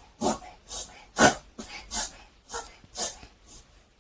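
Maltipoo puppy reverse sneezing: repeated harsh snorting pulls of air in through the nose, about two a second. This is the spasm of paroxysmal inspiratory breathing, also called reverse sneezing.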